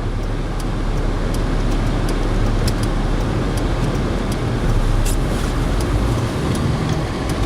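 A vehicle's engine running with a steady low rumble under even cabin and road noise, heard from inside the vehicle.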